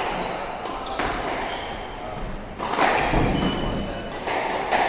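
Squash ball being hit with rackets and smacking off the court walls during a rally, about five sharp, echoing hits at uneven intervals.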